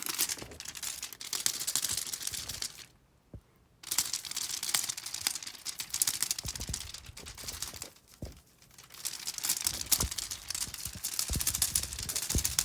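Plastic packaging of cat treats being handled, rustling and crinkling with sharp little crackles. It comes in three stretches, with short pauses about three and eight seconds in.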